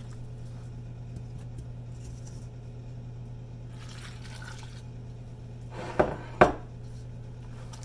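Water poured quietly from a glass measuring cup into a stainless steel bowl of flour, followed about six seconds in by two sharp knocks, half a second apart, as kitchen containers are set down on the counter. A low steady hum runs underneath.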